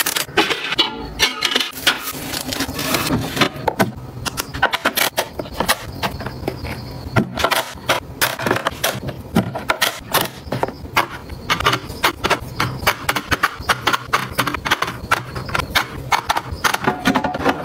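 Rapid, irregular clicking, tapping and clattering of hard household items being handled, set down and arranged, many sharp knocks in quick succession.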